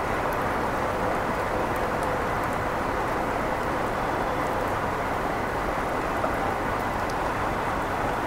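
Steady, even hiss of background noise with a faint steady hum.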